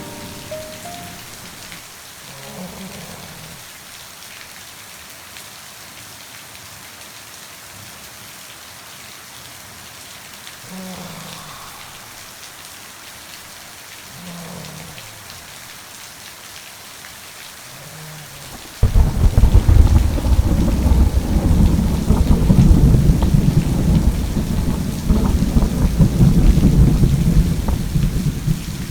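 Steady rain falling. About two-thirds of the way in, a thunderclap breaks in suddenly, much louder, and rumbles on for about ten seconds.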